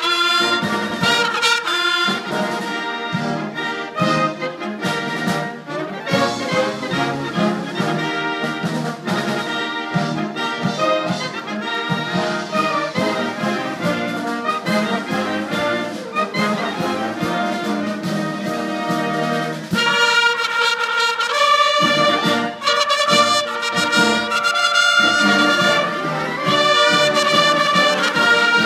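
Military brass band with a line of bugles playing a tune together. The music grows brighter and louder about twenty seconds in.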